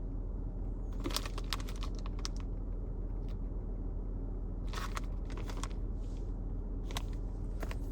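Packaging and tools being handled: short clusters of crinkling and clicking, about a second in, around five seconds in and again near the end, over a steady low hum.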